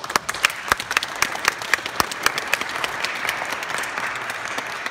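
Audience applauding, with one nearby person's claps loud and sharp over the rest, about four a second, for the first couple of seconds.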